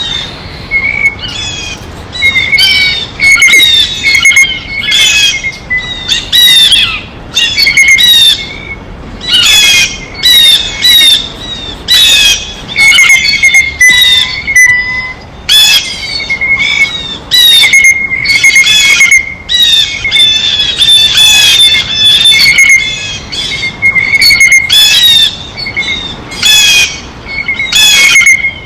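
Blue jays giving loud, harsh squawking calls over and over, in quick runs with short pauses between them.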